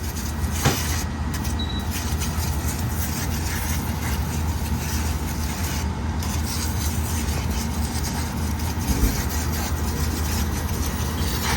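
Upright freezer's top-mounted condensing unit running, a steady hum with fan noise.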